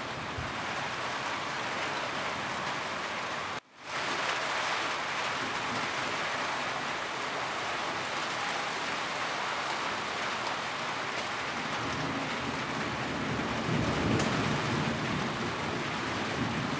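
Steady rain pattering on a roof, a dense even hiss. It cuts out for a moment about three and a half seconds in, and a low rumble swells up around two-thirds of the way through.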